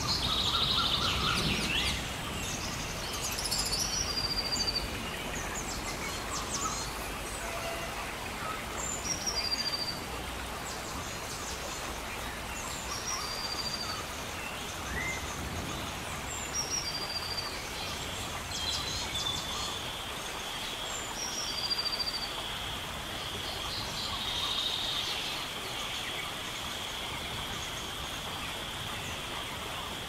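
Rainforest ambience: a steady hiss of rain under a bird repeating a short falling call about every four seconds. A steady high whine joins about halfway through.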